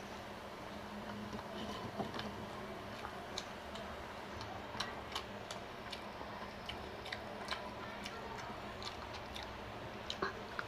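A person chewing food, with irregular sharp mouth clicks and smacks a few times a second over a steady faint hum.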